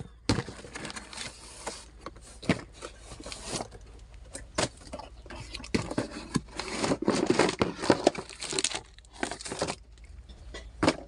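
A parcel's packaging being torn open and crinkled by hand: a run of sharp rips and rustles, busiest about six to nine seconds in.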